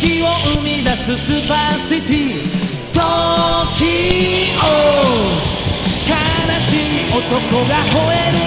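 Rock music from the soundtrack: a melodic lead line with bends and a long falling glide midway, over full band accompaniment.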